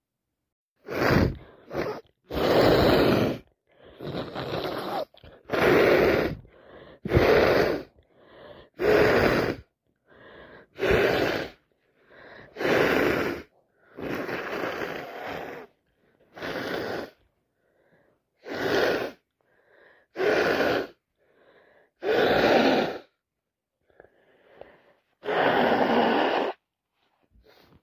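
A person with a head cold breathing heavily: about fifteen loud, noisy breaths, each about a second long, coming every second or two.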